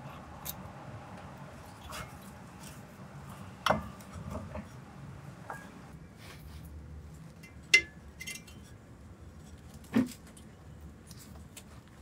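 Metal brake parts and tools clinking while a disc brake caliper is unbolted and taken off: scattered light clicks, with three sharp clinks standing out.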